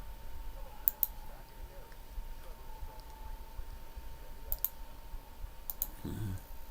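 Sharp clicks in close pairs, three times, over a low steady hum and a faint steady tone.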